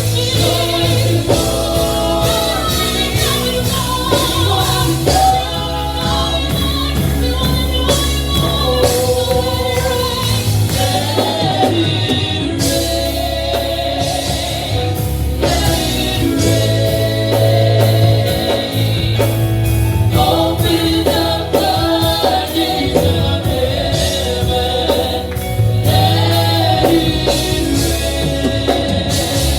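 Gospel worship music: voices singing a melody over a band with heavy sustained bass and regular drum beats.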